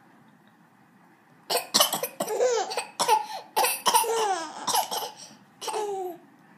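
Repeated coughing with a baby laughing back at it: sharp coughs start about a second and a half in, and each is answered by bursts of high laughter that fall in pitch, going on until near the end.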